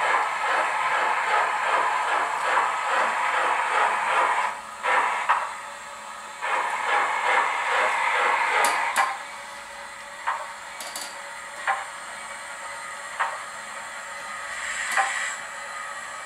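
Model steam locomotive sound decoder playing a Bulleid Merchant Navy 4-6-2's exhaust beat through the model's small loudspeaker, at about three chuffs a second. The chuffs break off briefly about four seconds in, resume, then stop about nine seconds in. After that only occasional single clanks and short hisses remain, as the engine drifts without steam.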